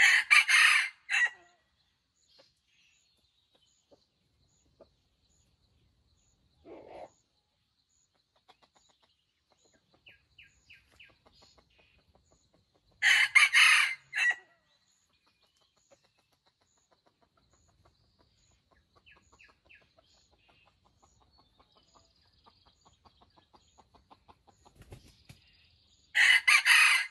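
Red junglefowl rooster crowing three times, each a short crow of about a second and a half, spaced about thirteen seconds apart. Faint clucking comes in between.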